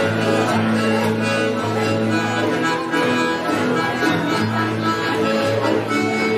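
Live band music filling the room: held melody notes over a bass line that changes note about every second.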